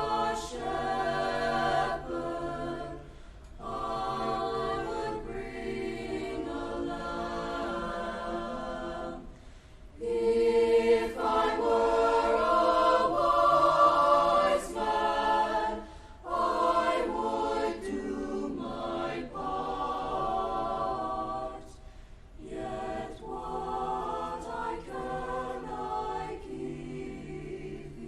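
Student choir singing a cappella in harmony, in phrases with short breaths between them.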